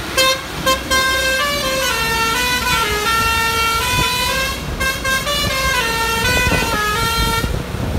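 A truck's musical horn playing a tune of held notes that step up and down for about seven seconds, then cutting off, over the low rumble of engines and traffic.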